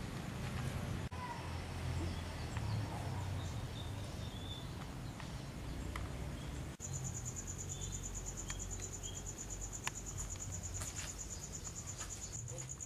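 A steady, high-pitched insect trill starts suddenly about seven seconds in and keeps going, over a low rumble of background noise.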